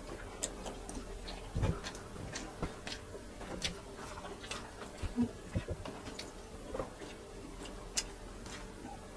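Close-up eating sounds of grilled chicken and rice: scattered wet clicks and smacks of chewing, at an irregular pace, with a few louder ones.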